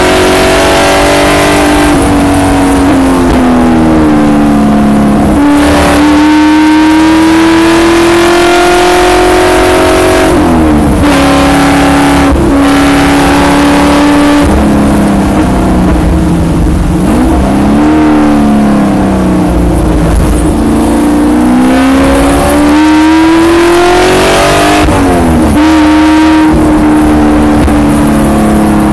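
Spec Corvette's V8 racing engine heard from inside the car at full throttle. Its pitch climbs through each gear and drops sharply at the upshifts, several times over, with a few short dips and blips under braking for corners.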